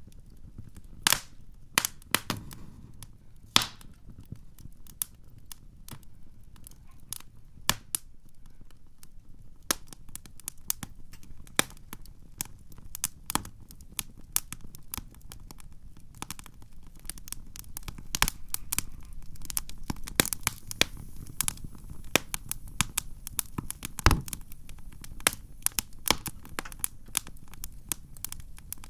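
Wood campfire crackling: irregular sharp pops and snaps over a low steady hiss of burning. The pops come more often after about ten seconds.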